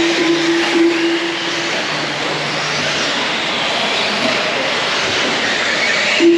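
Electric off-road RC cars running on a dirt track: a steady, loud haze of motor whine and tyre noise. A steady tone is held for the first couple of seconds and comes back briefly at the very end.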